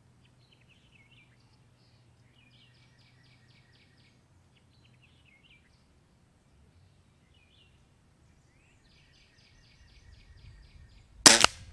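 Birds calling faintly, twice in phrases of rapid repeated notes. Near the end, a single short, loud report: the Weihrauch HW97K .177 spring-piston underlever air rifle firing one shot.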